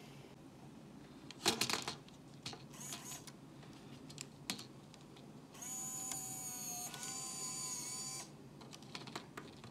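Plastic buttons clicking on a VHS-C camcorder's control panel, then the camcorder's tape mechanism motor running with a steady whine for about three seconds before stopping, and a few more clicks near the end. The mechanism is running again after a shorted electrolytic capacitor was removed.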